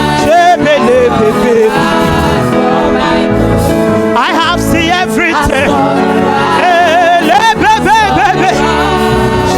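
Gospel praise music: a singing voice holding long, wavering notes over a steady band accompaniment.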